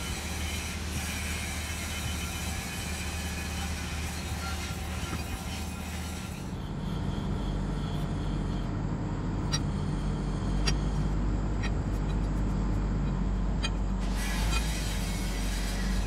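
Steady low mechanical rumble of running machinery, with a hiss over it for the first half. In the second half the rumble grows heavier and a few sharp clicks sound.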